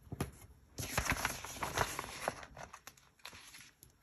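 Paper stickers being handled: light rustling of sticker paper and small clicks and taps of a tool on the page as star stickers are peeled off and pressed down, busiest about a second in.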